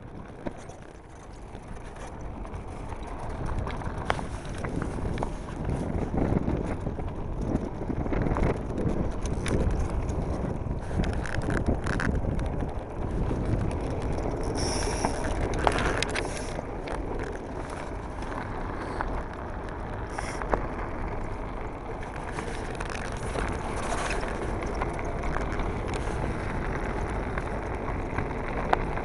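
Blokart land yacht rolling fast across a hard, dry lakebed: a steady rumble of the wheels with wind buffeting the microphone, picking up a few seconds in, and scattered clicks and rattles from the cart and its sail.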